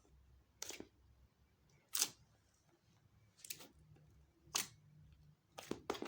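Slime being pressed and stretched by hand, giving sharp sticky clicking pops about once a second, five in all, the loudest about two seconds in and a quick pair near the end.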